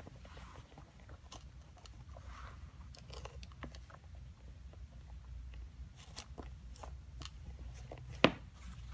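Hands tucking and adjusting the laces of leather Air Jordan 5 sneakers: scattered small clicks, crinkles and rubbing of lace on leather, with one sharp click about eight seconds in.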